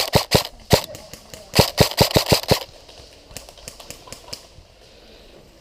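Airsoft guns firing as sharp cracks: a few shots at the start, a rapid string of about eight shots around a second and a half in, then fainter, more distant shots.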